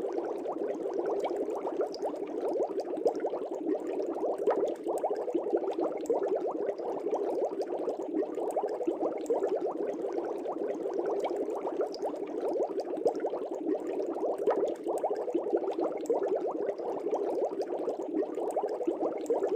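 Aquarium air bubbles rising through water, a steady continuous bubbling made of many tiny rapid pops and gurgles.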